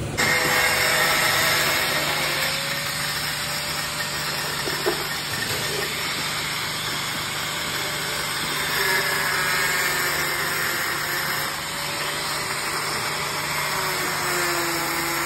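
Small angle grinder running steadily, its disc cutting into a black plastic underbody cover, with a hissing grind over the motor's whine.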